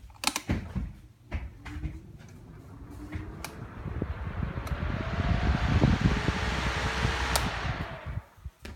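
Lasko stand fan switched on with a few clicks. Its motor hum rises in pitch as it spins up and the air rush builds, almost like a bathroom fan, then the sound drops away near the end.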